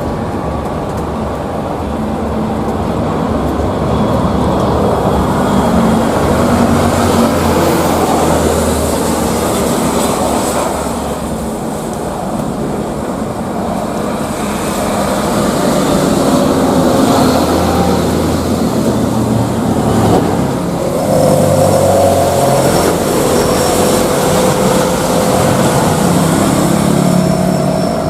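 Jet airliner engines running loud and steady, with a high, thin whine that comes in about twenty seconds in.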